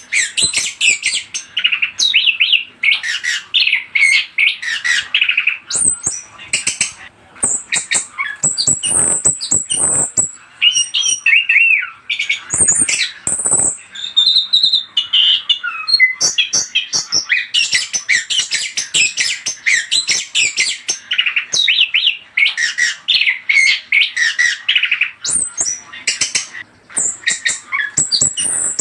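Orange-headed thrush (anis kembang) singing a fast, varied song of chirps, trills and high whistles, almost without a break, with a few short pauses along the way. It is the kind of lure song used to get other thrushes to answer.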